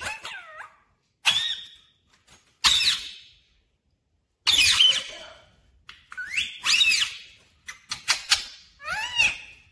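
Rose-ringed parakeet giving a series of short whistled calls, about seven bursts whose pitch swoops up and down, separated by short pauses.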